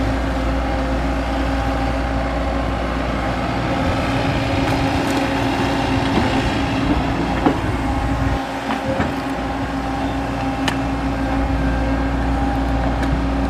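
XCMG XE75G excavator's diesel engine running steadily while it digs, with a few sharp metallic clanks, the clearest about halfway through and another about three-quarters of the way through.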